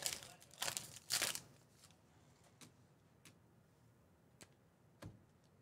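Foil wrapper of a Panini Select football card pack being torn open and crinkled during the first second or so, followed by a few soft ticks as the cards are handled.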